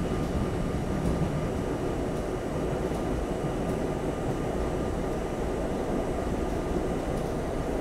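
R32 subway car running at speed along elevated track, heard from inside the car: a steady rumble of wheels on rail with a faint steady high whine and a few faint ticks.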